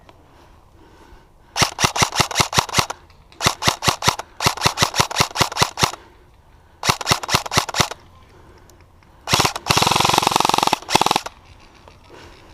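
Airsoft electric rifle (VFC 416C) firing on full auto: four bursts of rapid, evenly spaced shots, about eight a second and each burst a second or so long, then a longer, much faster rattle of fire near the end.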